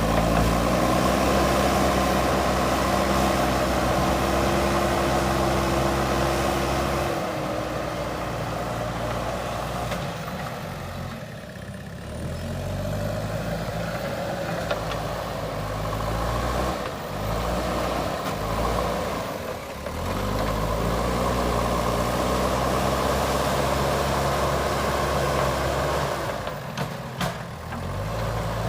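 JCB backhoe loader's diesel engine running, revving up and holding high revs, then dropping back toward idle, twice over. The revs climb at the start, fall after about seven seconds, climb again around the middle and fall near the end.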